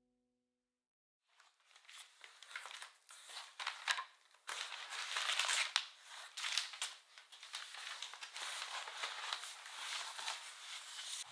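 Cardboard box being opened and unpacked by hand: its flaps and contents rustle and crinkle, with many sharp clicks and scrapes. It starts after about a second of silence.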